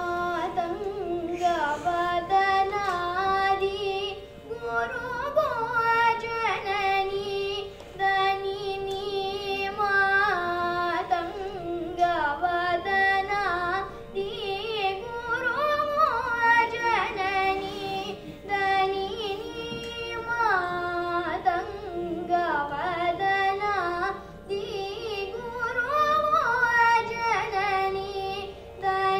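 A girl singing a Carnatic krithi solo, her voice sliding and bending through ornamented notes in phrases with brief breaks between them, over a steady drone.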